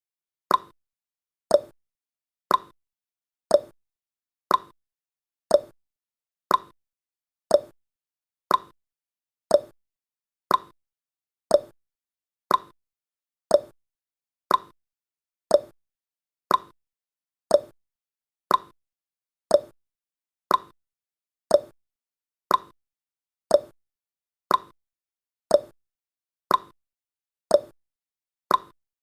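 Countdown timer's ticking sound effect: one short, sharp tick each second, keeping a steady beat as the seconds count down.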